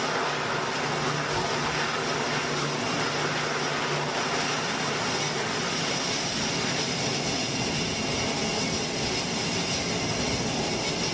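E-2C Hawkeye's twin turboprop engines running at full power through a carrier catapult launch, a steady loud noise of engines and propellers. A low steady hum under it drops out about four seconds in as the plane runs down the deck and lifts off.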